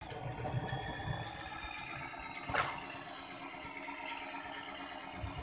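Radio-controlled dump truck model crawling over a muddy dirt track: a faint steady running sound with a thin high whine, and one sharp crackle about two and a half seconds in.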